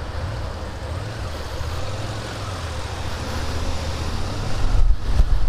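Suzuki SFV650 Gladius's V-twin engine pulling away from a standstill and picking up speed, heard through a microphone inside the rider's helmet. Wind noise on the microphone builds near the end as the bike gathers speed.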